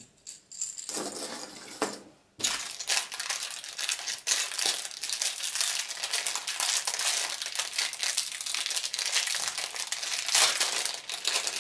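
Thin clear plastic packaging bag crinkling as a fishing lure is worked out of it by hand. After a couple of seconds of quieter handling, a dense crackle sets in.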